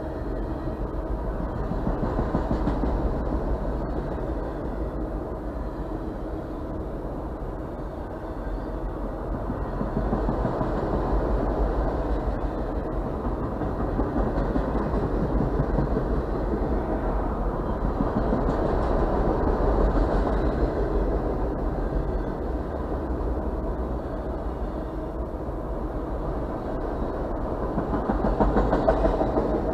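A long freight train of autorack cars rolling steadily past: steel wheels rumbling on the rails, the noise swelling and easing as the cars go by.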